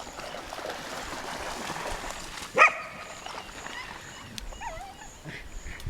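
A dog barks once, sharply, about two and a half seconds in, followed by fainter wavering whines.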